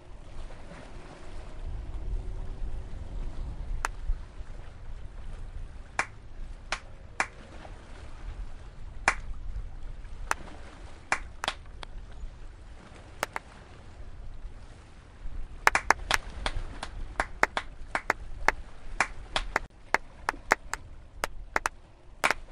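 Sharp hand claps: single claps a second or two apart at first, then a quick, uneven run of claps from a little past the middle on, over a low steady rumble.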